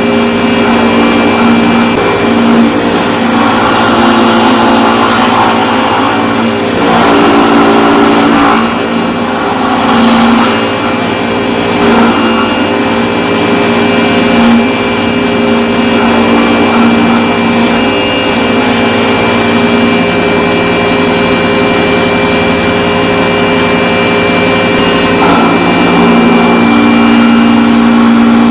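A motor-driven power tool carving timber, its motor running continuously at a steady pitch. Rasping cutting noise swells and eases several times as the tool bites into the wood, most heavily in the first half.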